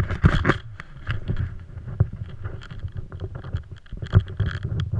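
Wind buffeting a helmet-mounted action camera's microphone, a low rumble broken by irregular knocks and clicks as the helmet and camera shift.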